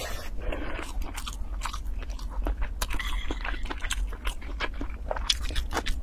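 Close-miked chewing of a mouthful of rice and braised pork belly: moist, sticky mouth clicks and soft crunching, many small clicks coming irregularly. A steady low hum sits underneath.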